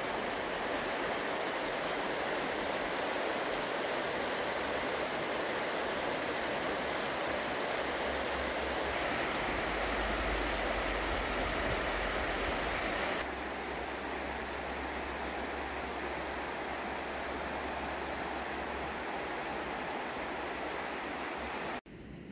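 Shallow river water rushing over a gravel and stone bed: a steady rushing noise that shifts in level a couple of times and falls away sharply near the end.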